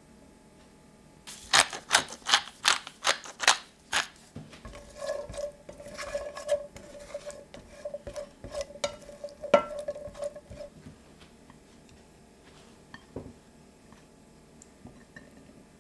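Edamame beans being stirred in a stainless steel frying pan: first a run of sharp clicks, about three a second, then rattling and scraping from a silicone spatula with one sharp knock on the pan. Near the end only a few faint taps.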